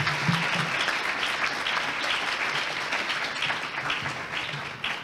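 Audience applauding, a dense patter of many hands clapping that begins to thin out near the end.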